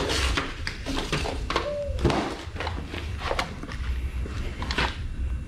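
Cardboard box and product packaging being handled and unpacked: a run of rustles, scrapes and knocks of cardboard, with a brief falling squeak about two seconds in.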